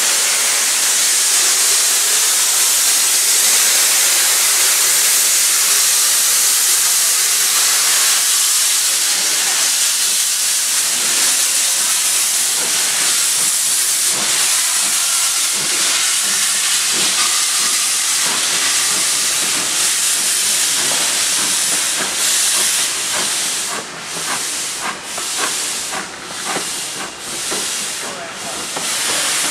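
Steam locomotive blowing off steam with a loud, steady hiss. Near the end the hiss breaks into pulses about once a second.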